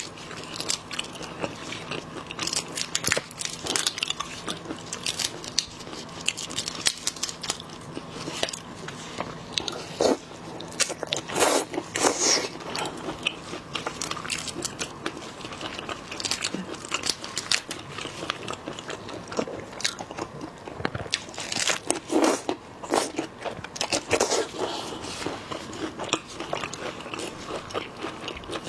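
Shells of large sauce-soaked prawns cracking and crackling as gloved hands break and peel them: a steady run of sharp small cracks, with a few louder bursts of cracking partway through.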